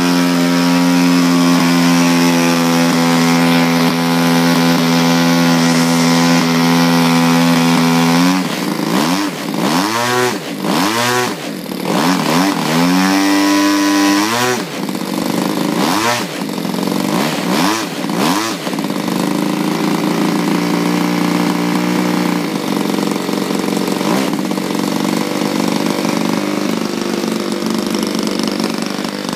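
XYZ 20cc two-stroke gas engine of a radio-controlled Corsair model airplane, propeller turning, running steadily for about eight seconds, then revved up and down in a string of quick throttle blips, then settling back to a lower idle for the last ten seconds.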